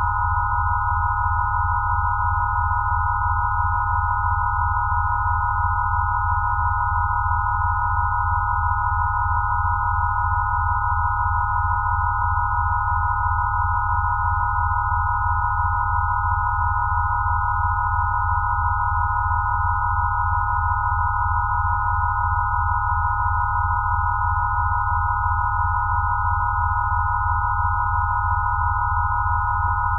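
Synthesized rife-frequency sine tones: several steady pure tones held near 1 kHz, the loudest in the middle, over a low hum that pulses quickly.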